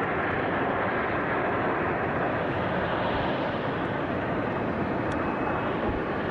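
Steady rushing noise of a Boeing 727 jet airliner rolling down the runway after landing with its nose gear up, its nose resting on the tarmac.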